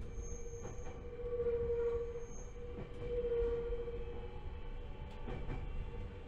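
Joshin Electric Railway 7000 series electric train running between stations, heard from inside the car: a steady rumbling drone with a few rail-joint clicks. Twice near the start a brief high squeal comes from the wheels.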